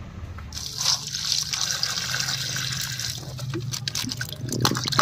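Water sloshing and dripping as peeled bottle gourd pieces are washed by hand in a steel plate of water. It starts about half a second in, with a few sharper splashes near the end.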